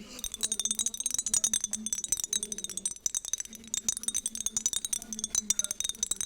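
Rapid tapping and clinking on a glass perfume bottle, many quick taps a second, with a bright high ringing that carries on throughout.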